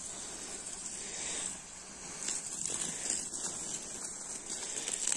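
Steady hiss of water from a garden hose spraying over tall grass.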